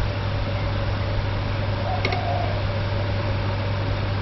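A steady machine hum from an appliance running in the room: a constant low drone with a higher steady tone over a hiss. A faint click about two seconds in.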